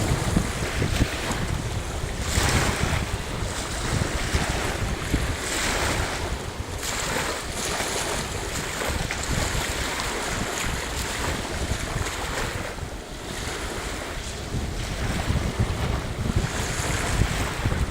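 Lake surf: waves breaking and washing ashore, swelling and falling every few seconds, with wind buffeting the microphone.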